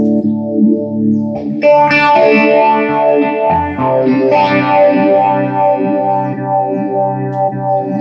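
Electric guitar played through a Line 6 Flextone III XL 2x12 modelling combo amp: a held chord, then a change about a second and a half in to brighter, busier chords and notes. The amp is being sound-tested after its pots were cleaned and resoldered to cure dropping volume and jumping settings.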